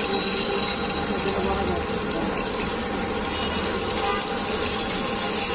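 Marinated meat pieces sizzling in shallow oil on a large flat frying pan: a steady hiss of frying.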